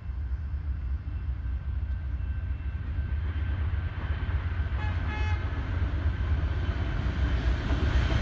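Amtrak diesel passenger train led by a GE P42 Genesis locomotive approaching, its low rumble growing steadily louder. A brief horn toot sounds about five seconds in.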